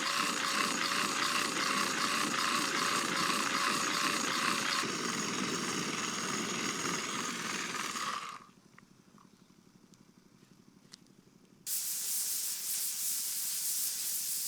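Pressure cooker whistling on a campfire: a loud steam hiss with a wavering whistle tone for about eight seconds, which cuts off suddenly, the sign that the cooker has come up to pressure. After a few seconds of near quiet a steady hiss comes back.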